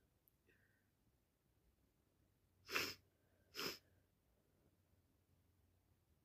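Two quick sneezes about a second apart from a person with a bad summer cold.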